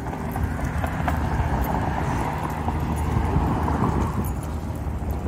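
Steady road traffic noise with a low rumble, swelling in the middle as a vehicle passes.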